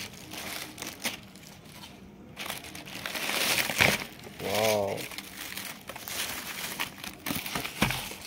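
Honeycomb kraft packing paper being pulled and crumpled by hand while a parcel is unpacked: a steady run of crinkling and crackling, busiest about halfway through. A short "wow" is spoken about halfway.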